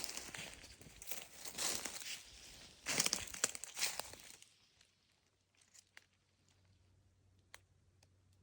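Footsteps crunching and rustling through dry leaf litter and twigs on the forest floor for about four seconds, then a few faint snaps.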